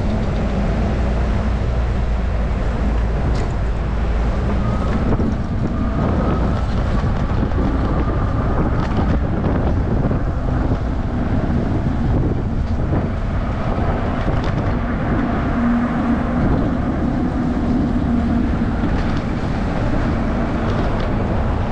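Steady wind rumbling on the microphone of a moving bicycle, with road traffic underneath.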